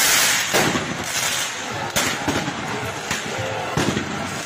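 Street fireworks going off: a loud hissing burst, then several sharp bangs a second or so apart.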